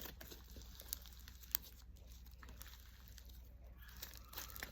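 Boba slime being pressed and stretched by hand, giving faint sticky crackles and small clicks, with two sharper clicks about one and one and a half seconds in.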